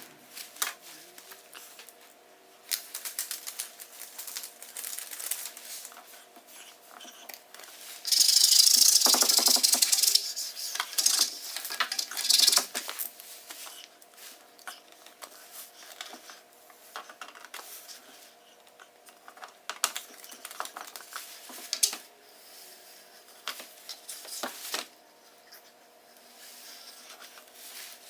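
Frosted contact paper being handled and pressed onto a light bar's glass lens: scattered small clicks, taps and crinkles, with a louder rasping hiss for about two seconds a third of the way in. A faint steady hum sits under it.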